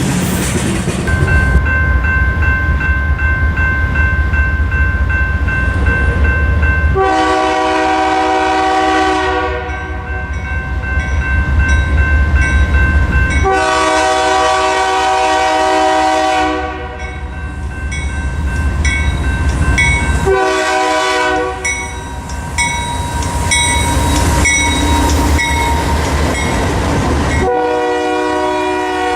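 Diesel locomotive air horn sounding the grade-crossing signal: two long blasts, a short one and a final long one, over the heavy low rumble of the locomotive and train.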